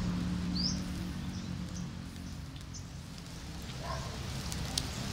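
Wood fire crackling under spit-roasted chickens, with sharp pops near the end. A low steady hum fades out over the first couple of seconds, and a few short high chirps come and go.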